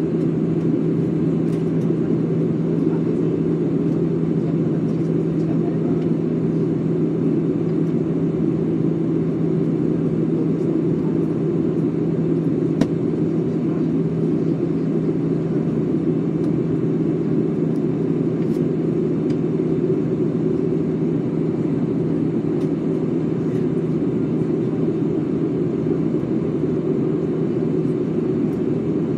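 Steady cabin noise inside a Peach Aviation Airbus jet airliner on descent: an even rush of engine and airflow noise with a steady low hum, and a single light click about halfway through.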